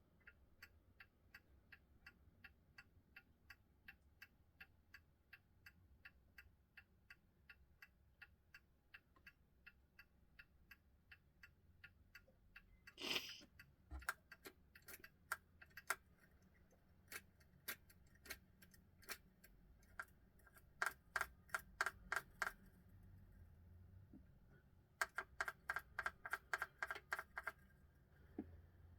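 1970s Seiko time-dater clock movement ticking faintly and evenly, about twice a second. Partway through there is a single knock, then louder, uneven clicks and a few quick runs of rapid clicking.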